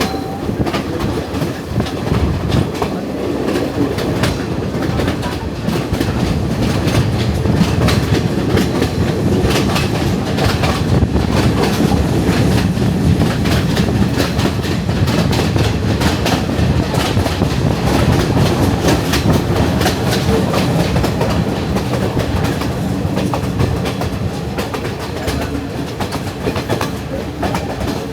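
Sri Lanka Railways passenger train running along the track, heard from aboard the carriage: a steady rumble with a constant stream of wheel clicks over the rail joints.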